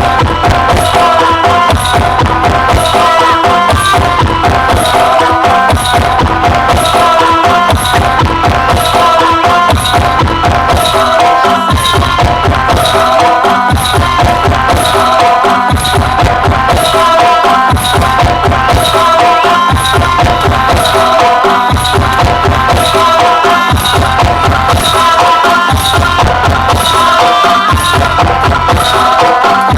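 Loud music played through a large sound system, with heavy bass and a steady drum beat.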